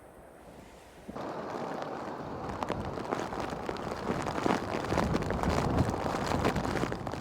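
Strong wind buffeting the microphone: a loud rushing rumble full of crackles that cuts in abruptly about a second in and swells in gusts.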